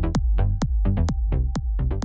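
Electronic background music with a steady beat of about two sharp hits a second, plucked synth notes between the hits and a deep bass.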